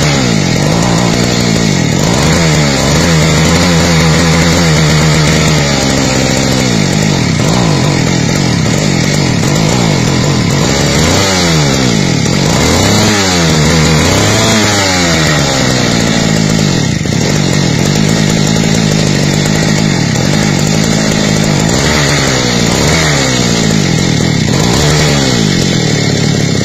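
Kawasaki TD40 small two-stroke engine running, its speed rising and falling repeatedly as it is revved, with several quick swoops in pitch around the middle and a few more near the end.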